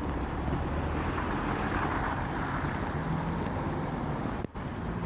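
Torrential rain falling as a steady hiss, with a heavy rumble of wind and water on a rain-soaked microphone. The sound drops out for a moment near the end.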